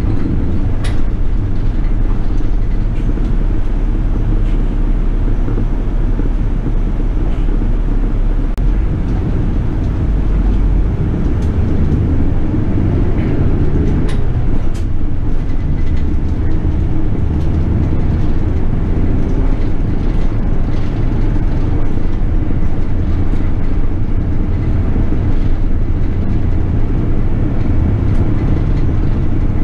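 City bus running in traffic, its engine and road noise heard as a steady low rumble from inside the passenger cabin. A few light clicks and rattles sound over it.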